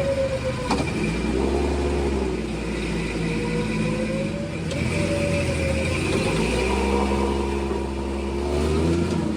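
12,000-lb Harbor Freight electric winch pulling under heavy load, hauling two rigs bogged in snow, its motor whine slowly rising and falling, over an engine running. A single click sounds less than a second in.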